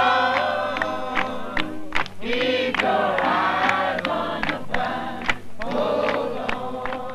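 A group of people singing together in chorus, with hand claps keeping a steady beat. The singing comes in long held phrases with short breaks between them.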